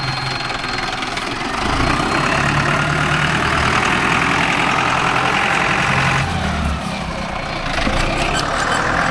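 Mahindra 605 S tractor's diesel engine running, getting louder about a second and a half in, dropping back about six seconds in, then louder again near the end before the sound cuts off suddenly.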